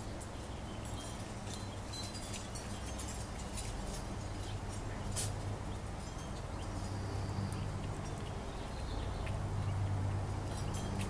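Cat lapping water from a birdbath: a run of small, quick wet clicks from the tongue, thinning out in the middle while the cat lifts its head, then picking up again near the end. A steady low hum runs underneath.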